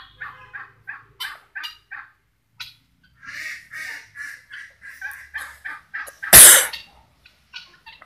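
Helmeted guineafowl calling: a rapid run of short, harsh repeated cackles that thickens into a steady chatter partway through. About six seconds in there is one much louder, harsh half-second burst.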